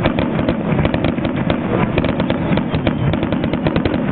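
Fireworks display: a rapid, unbroken barrage of bursting shells and crackling, many sharp cracks a second over a steady rumble.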